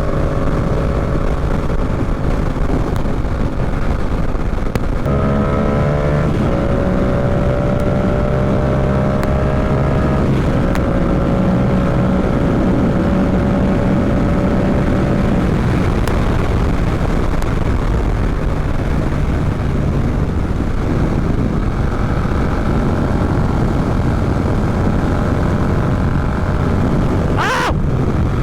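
Yamaha R7 motorcycle's parallel-twin engine running under way, with steady wind and road noise on the microphone. The engine note steps up and down in pitch a few times as the revs change, and a brief rising whine sounds near the end.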